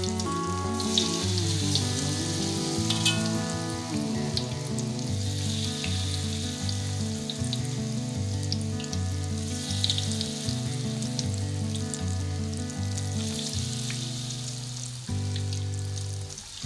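Corn fritters deep-frying in hot oil: a steady sizzle with scattered small pops and crackles, under background music.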